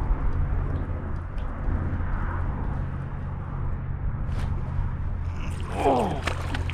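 Wind buffeting the microphone, a steady low rumble, with a brief falling-pitched sound near the end.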